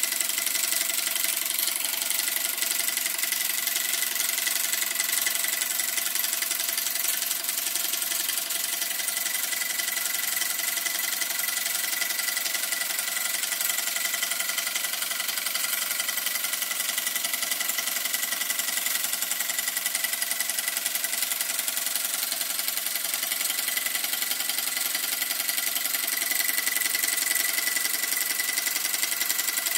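Weeden No. 14 toy steam engine running steadily under steam: the small single-cylinder engine gives a continuous, even chuff and clatter as the flywheel spins.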